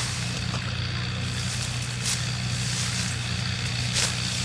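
Small petrol engine running steadily at constant speed, with a hiss over its hum and a few brief swishes.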